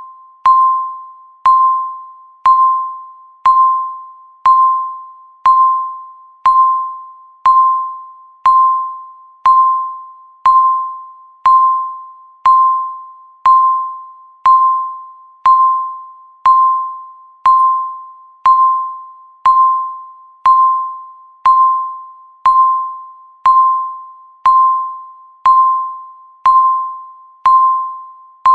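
Countdown timer beeping once a second: a short electronic tone that starts sharply and fades away quickly, repeated evenly, marking each second left.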